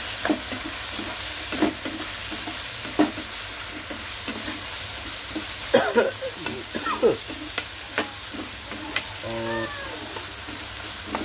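Chicken frying in a hot pan with a steady sizzle while it is stirred and tossed, the spatula scraping and clicking against the pan as the salt and black pepper are mixed in. A short squeak comes about nine and a half seconds in.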